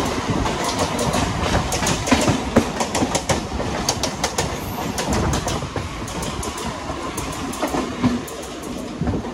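Mumbai suburban electric local trains running on the tracks, heard from an open doorway of one of them: a steady rumble of wheels on rail with rapid, irregular clacks over joints and points, thickest in the first few seconds.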